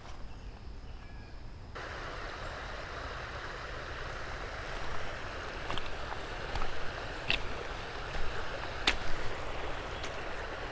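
Creek water rushing steadily, starting abruptly about two seconds in, with a few short sharp clicks or ticks scattered through the middle.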